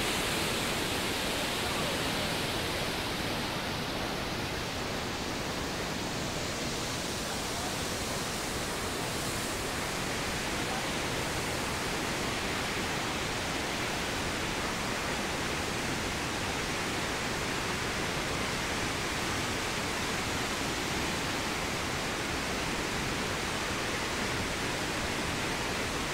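Waterfall and flooded, muddy river rushing through a rock gorge: a steady, unbroken rush of falling and churning water.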